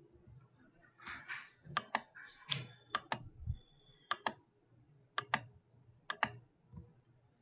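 Computer mouse button clicking, a run of sharp press-and-release double clicks about a second apart, with some brief rustling near the start.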